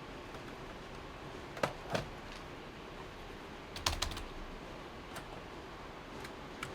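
A few scattered computer keyboard key presses: two about a second and a half in, a quick cluster near four seconds, then a couple of fainter taps, over a steady low hiss.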